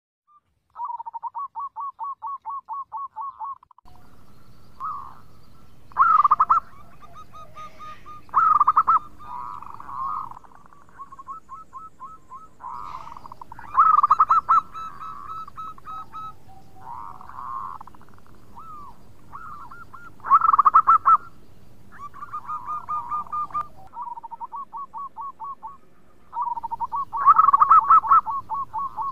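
Zebra dove (perkutut) cooing: fast stuttering runs of short soft coos alternate with louder, fuller coos, which come every five or six seconds.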